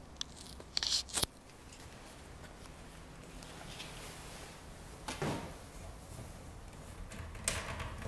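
Handling noises at a compact kitchen unit: a few sharp clicks about a second in, then two short soft brushing sounds, the last as a hand comes to the wall-mounted cupboard doors.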